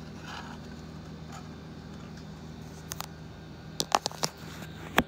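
Several sharp clicks and knocks of hard plastic and metal being handled as a phone is set against a stereo microscope's eyepiece, loudest in a cluster about four seconds in and once more near the end, over a steady low hum.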